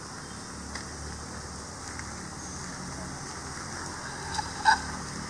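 Outdoor garden background: a steady hiss with insects chirping faintly in short high notes, and a brief sharp sound near the end.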